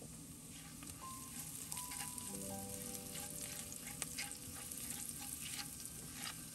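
Chopped onion sizzling in hot oil with smoked paprika in an enamelled pot, with a steady stream of small crackling pops. A silicone spatula stirs the onion partway through.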